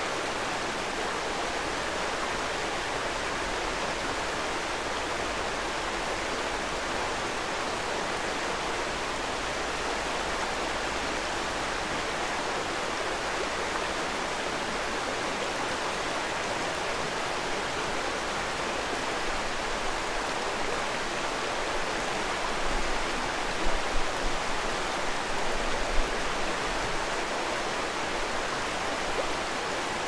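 Shallow mountain stream running steadily over rocks, an even rushing of water. Near the end, a few brief low thumps rise above it.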